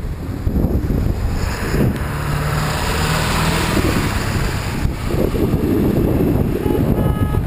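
Wind buffeting the microphone of a camera on a moving bicycle, with the hiss and hum of a pickup truck passing close by a couple of seconds in.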